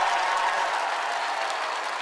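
Concert audience applauding, the clapping slowly dying down.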